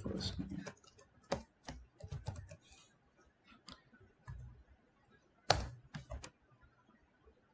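Typing on a computer keyboard: a quick run of keystrokes in the first three seconds, then a few scattered key presses, the loudest about five and a half seconds in.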